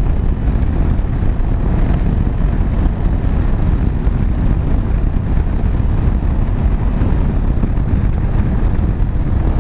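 Steady rush of wind and engine at cruising speed from a KTM 790 Adventure's 799cc LC8c parallel twin in sixth gear.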